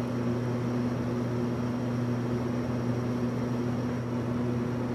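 Steady low electrical hum over an even hiss, unchanging throughout: background noise with no other sound.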